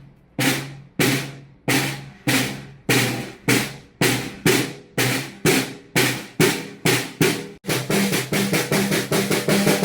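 A drum struck in single ringing strokes that gradually speed up, turning into a fast roll near the end.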